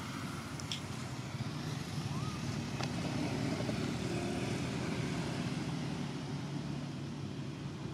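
A steady low engine drone from a distant motor, swelling slightly in the middle, with a few faint clicks.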